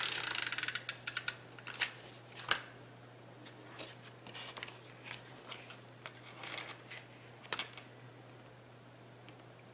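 Adhesive tape runner clicking rapidly for about the first second as tape is laid on card stock. Then come scattered paper rustles and light taps as the card pieces are handled and pressed together.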